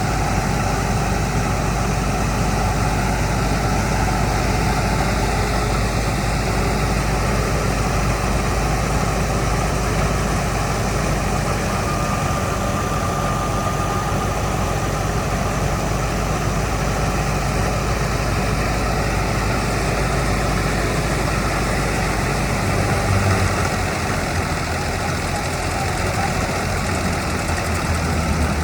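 Harvesting machinery's engine running steadily under load, its low note shifting about three-quarters of the way through.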